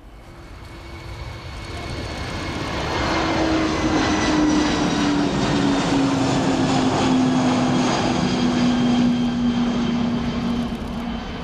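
Kawasaki P-1's four turbofan jet engines at takeoff power, growing louder over the first few seconds and then staying loud. A strong low whine slowly falls in pitch as the aircraft passes, over a steady roar with thin high whistling tones.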